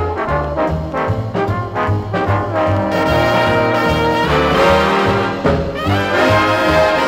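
Big-band swing music played from a 1958 stereophonic LP, with trombones and trumpets carrying the passage over a steady bass beat.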